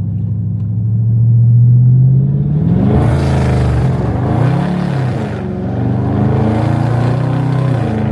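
Car engine heard from inside the cabin, humming steadily at first, then from about three seconds in the revs rise and fall as the car accelerates, with road noise.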